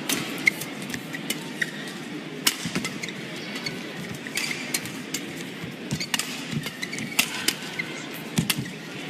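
Badminton rally: rackets striking the shuttlecock in a fast exchange of sharp hits at uneven intervals, with brief squeaks of court shoes over the steady noise of a large hall.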